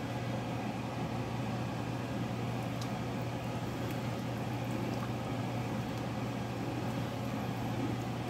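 Thinned curry gravy cooking in a nonstick pan while a wooden spatula stirs it, over a steady low hum.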